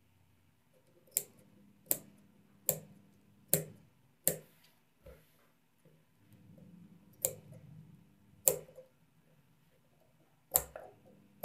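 Large steel tailor's shears snipping notches into the curved seam allowance of a neck facing stitched to buckram: each snip is a sharp click of the blades closing. A steady run of five snips comes a little under a second apart, then three more follow further apart.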